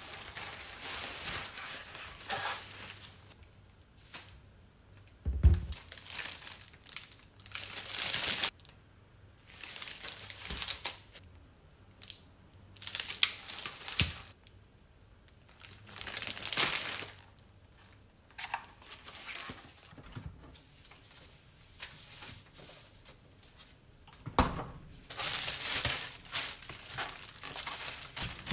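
Plastic grocery bags and produce wrappers rustling and crinkling in irregular bursts as groceries are unpacked and handled, with quiet gaps between. A dull thump about five seconds in as something is set down.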